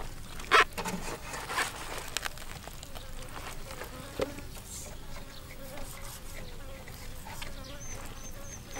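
An insect buzzing in a faint wavering hum, over a few sharp knocks and rubbing as a raw plucked chicken is handled and turned in a plastic basin, the loudest knock about half a second in.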